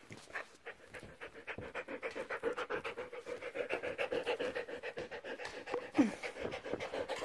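A border collie panting close to the microphone: quick, even breaths, several a second. About six seconds in there is one brief, louder sound that falls in pitch.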